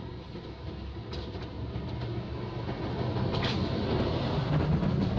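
A motor vehicle's engine running with a low steady hum, getting steadily louder.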